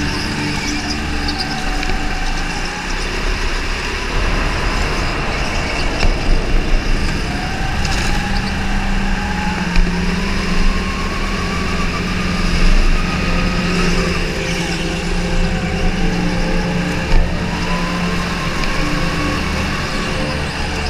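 Racing kart's motor heard close up from on board, its pitch climbing for a few seconds at a time under acceleration and falling back off the throttle. A few short knocks stand out above it.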